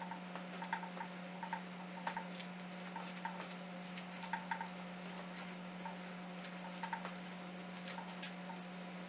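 Spoon or spatula stirring grated carrot into thick carrot cake batter in a bowl: soft, irregular taps and scrapes every second or so, over a steady low hum.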